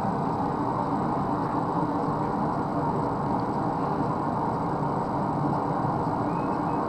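A forge running steadily, its constant noise filling the shop without a break.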